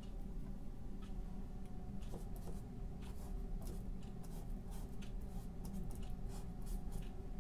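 Paintbrush stroking thick paint onto a stretched canvas: a run of short, scratchy brush strokes, quicker and closer together in the second half, over a steady low hum.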